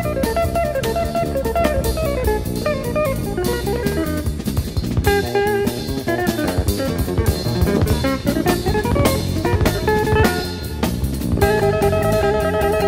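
Jazz recording: guitar playing quick runs of single notes over a drum kit.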